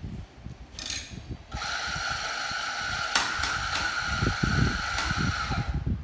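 Coffee grinder motor running with a steady whine for about four seconds, starting about a second and a half in and stopping just before the end, with a few sharp clicks over it.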